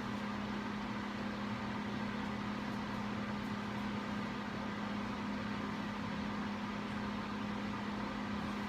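Microwave oven running: a steady, even hum with a low drone and fan noise, heating a frozen TV dinner.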